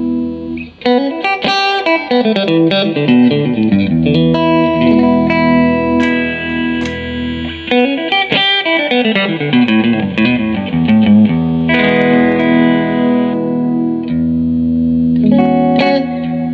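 Electric guitar played clean through a Fender Blues Junior IV tube combo amp. Quick single-note runs go down and back up twice, between held, ringing chords.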